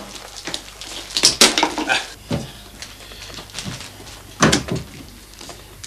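Hand-operated plastic-film heat sealer being worked: several sharp clacks and knocks as its sealing bar is pressed down and released, with plastic film rustling in between.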